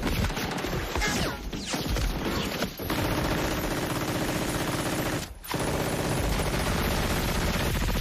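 Battle-scene soundtrack of heavy gunfire: machine-gun fire and rifle shots. It breaks off briefly a little past five seconds in.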